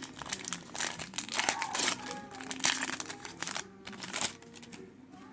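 Foil wrapper of a Pokémon trading-card booster pack crinkling as it is torn open, a dense run of crackles that dies down about four seconds in.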